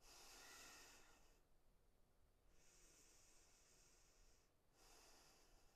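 Faint, slow breathing of a woman exercising: three long breaths, each a soft hiss.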